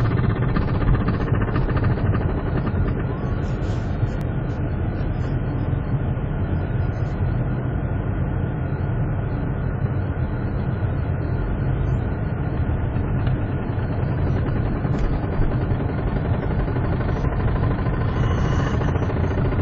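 Steady low rumble of a car's running engine, heard from inside the cabin.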